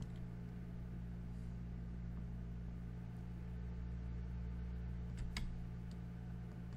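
Steady low electrical hum from the recording setup, with a single computer keyboard click about five seconds in.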